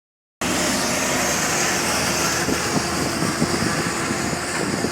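Double-decker bus engine running steadily under a strong hiss. The bus has a failing turbo and is running in limp mode.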